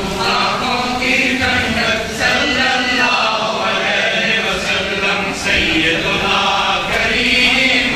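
A crowd of men's voices chanting devotional verses together, many voices overlapping in one continuous chant.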